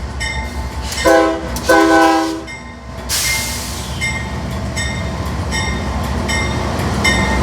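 A fouled locomotive air horn giving two short blasts, the second a little longer, over the low rumble of the train. A hiss follows, and a high tone repeats about twice a second throughout.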